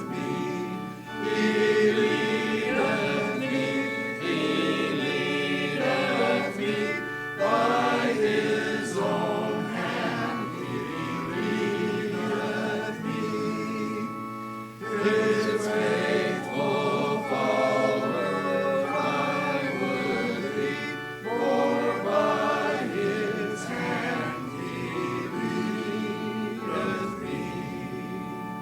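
Congregation singing a hymn together over held instrumental accompaniment, with brief breaks between phrases.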